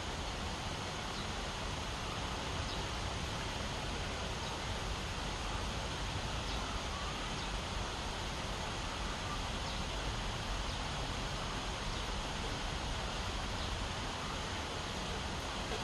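Steady outdoor ambient noise, a constant rustling hiss, with faint short high chirps every second or two.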